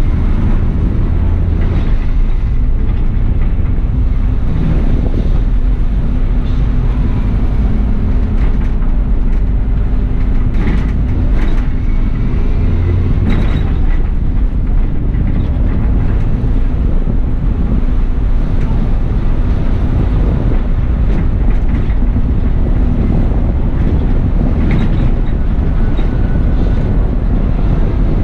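Bus on the move heard from the driver's cab: a steady engine drone and road rumble, with short rattles and clicks now and then.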